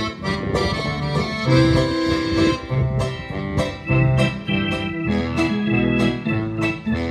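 Roland digital accordion played through an amplifier: a tune of held notes and chords over a steady rhythmic bass line.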